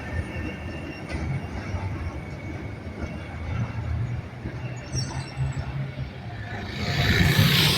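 Tram running on street rails: a steady low rumble with a faint high wheel squeal. Near the end a louder rushing noise builds.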